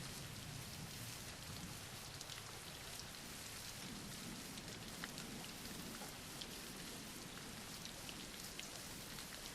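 Steady, gentle rain falling on a surface, with faint scattered drop ticks.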